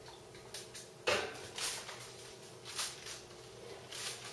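Foil-covered metal roasting pan set down on an oven's wire rack, with a sharp knock about a second in, then a few lighter clinks and scrapes as it is pushed in.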